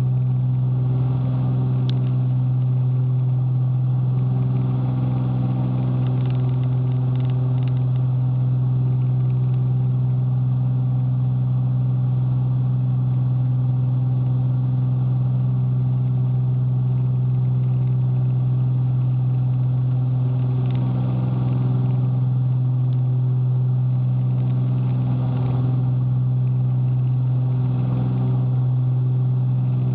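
Cessna 310Q's twin piston engines and propellers heard from inside the cockpit, a loud steady drone at climb power after takeoff, with a slow shifting in its upper tones.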